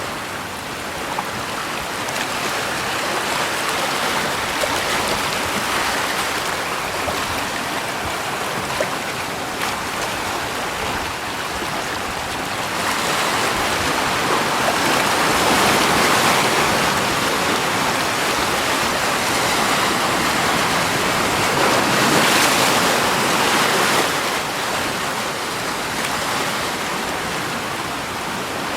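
Running water: a steady rush that swells louder about halfway through and eases again near the end.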